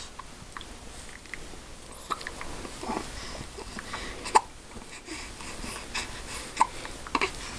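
A person hiccuping: several short, sharp hiccups, the loudest a little over four seconds in and two more close together near the end.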